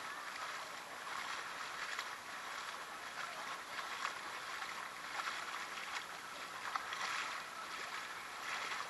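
Shallow freshwater creek water swirling and lapping close by, a steady babble with small splashes now and then.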